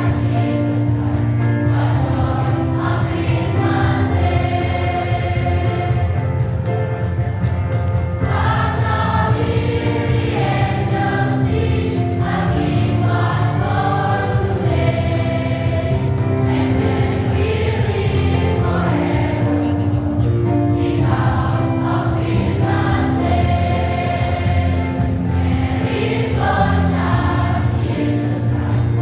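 A school choir singing a piece in several voice parts, sustained notes moving in phrases over a steady low accompaniment.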